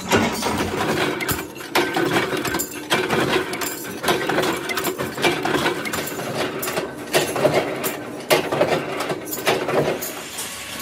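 Metal press in an oil filter workshop forming steel end-plate discs: sharp metal clanks roughly once a second over a steady machine hum.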